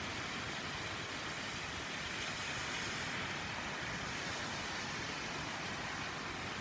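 Steady heavy rain falling on wet pavement and trees, an even hiss that swells slightly a couple of seconds in.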